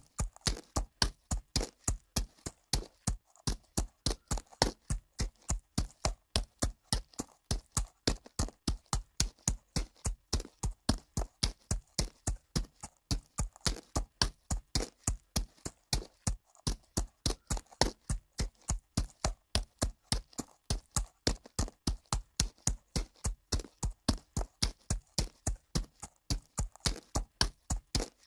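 Horse's hooves striking dirt at a walk, a steady, even clip-clop of about three hoofbeats a second.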